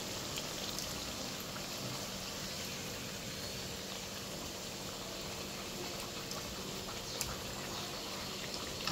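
Sweet wheat-flour and jaggery tikkis frying in a pan: a steady, even sizzle, with a couple of faint clicks near the end.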